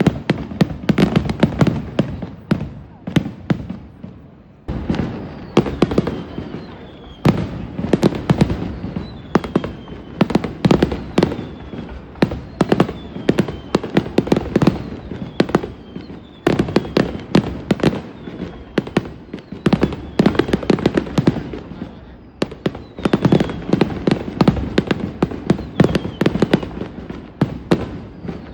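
Aerial fireworks bursting in rapid volleys, many sharp bangs overlapping, with a short lull a few seconds in. Faint short falling whistles sound between the bangs.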